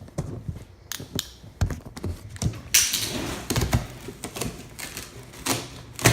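Cardboard box being knocked and handled: a run of uneven taps and knocks, a rough scraping on the cardboard lasting about a second near the middle, and a harder thump at the end.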